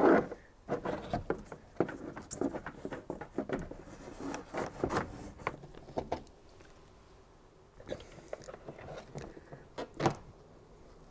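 A cable being pushed through a car's roof headliner and plastic interior trim: a run of small clicks, scrapes and rustles, a quieter pause past the middle, then a few more clicks and a single louder knock near the end.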